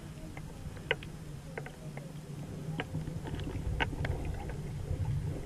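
Underwater sound picked up by a camera submerged in shallow sea water: a steady muffled low rumble with scattered faint clicks and ticks, a few each second.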